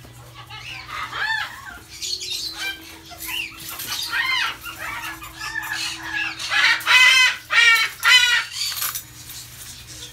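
Pet parrots calling: a run of short arched squawks that grow louder and harsher about seven to eight and a half seconds in, over a steady low hum.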